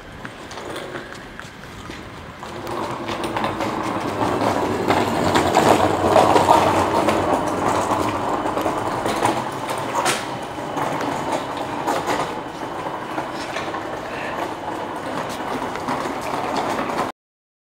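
Train running on rails: a steady rumble that swells a few seconds in, with wheels clicking over rail joints, then cuts off abruptly near the end.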